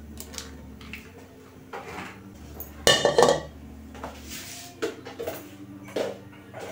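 Metal wok set down on a cast-iron gas burner grate with a loud clatter about three seconds in, with a few lighter knocks and clinks of metal before and after.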